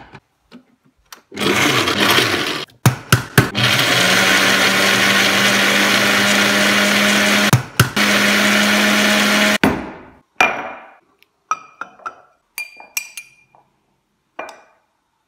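Countertop blender with a glass jug running, started and stopped a couple of times at first, then held on steadily for about six seconds before cutting off. Scattered short knocks and clinks follow as the jug is handled.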